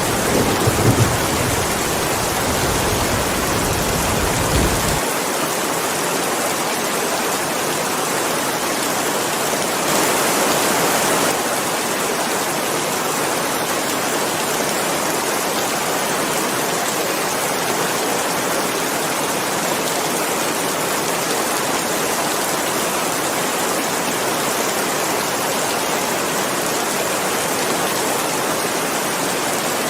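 Steady heavy rain hiss, with a low rumble of thunder underneath that cuts off suddenly about five seconds in.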